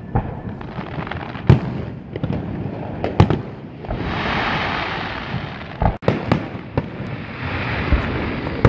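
Aerial fireworks shells bursting overhead: about half a dozen sharp bangs at uneven intervals, with a sustained hiss of crackling effects from about four seconds in and again near the end.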